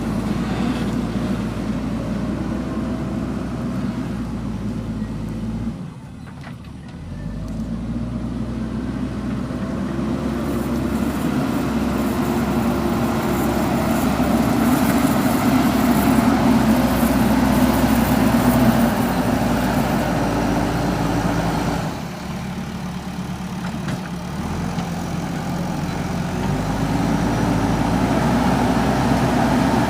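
JCB backhoe loader's diesel engine running under load while it works, its note dropping off sharply twice and building back up each time.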